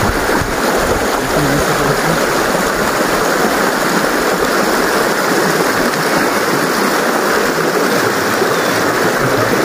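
Fast mountain stream rushing over rocks, a loud, steady flow of white water close by.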